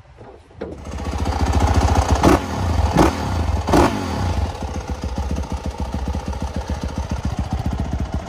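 Dirt bike engine starting about a second in, revved in three quick blips, then settling into a steady, fast-pulsing idle.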